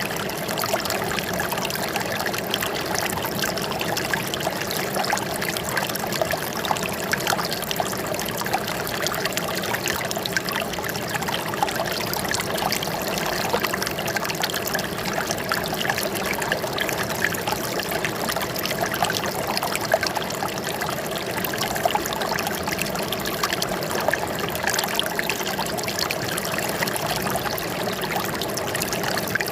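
Running water trickling and splashing steadily, a continuous flow with many small splashes.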